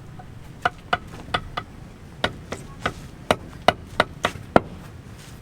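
Hammering: about a dozen sharp blows, four quick ones, then after a short pause about eight more at roughly three a second.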